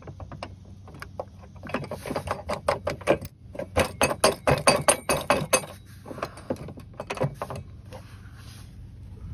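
Rapid, irregular metallic clicking and clinking as a washer and 19 mm nut are spun on by hand and the steel running-board bracket rattles against its mount. The clicking is thickest in the middle and thins out near the end.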